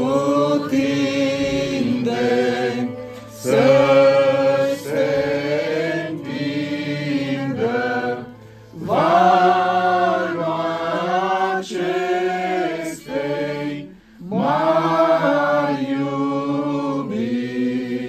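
A small group of voices singing a slow hymn together in long held phrases, breaking for breath about every five seconds.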